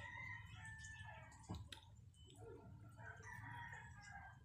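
Faint rooster crowing twice, each crow a long drawn-out call of about a second and a half, with a single sharp click between them.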